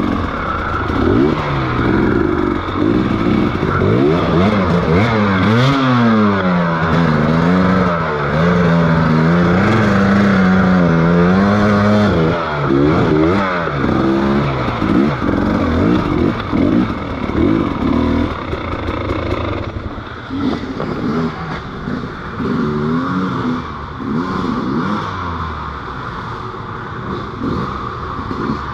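Motorcycle engine running under way, its pitch rising and falling again and again as the throttle opens and closes, with a few seconds of steady cruising in the middle. A steady rush of wind noise runs underneath.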